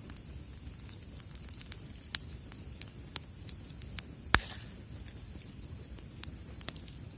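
Wood campfire crackling: scattered sharp pops at irregular intervals, with one much louder pop a little past the middle.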